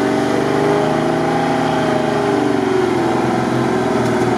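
Lada Niva's engine running under load as the off-road-modified SUV crawls up a muddy slope, its pitch wavering up and down as the driver works the throttle.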